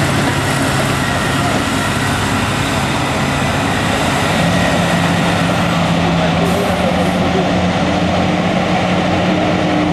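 Heavy diesel engines of a Caterpillar 375 excavator and a Caterpillar 773 rigid dump truck running loud and steady. About four and a half seconds in, a strong steady engine note comes in as the dump truck reverses in beside the excavator, and a higher note joins it near the end.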